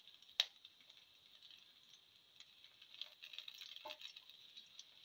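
Shallots and garlic sizzling faintly in hot oil in a frying pan while a spatula stirs them, scraping and tapping against the pan. There is a sharp tap about half a second in and another knock near four seconds.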